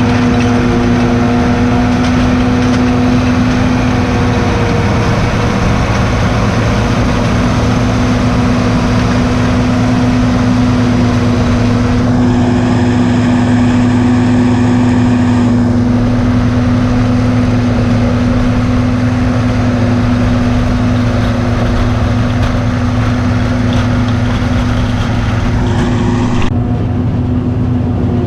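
Heavy farm machinery's diesel engine running steadily at constant speed, a low drone with a steady hum under it.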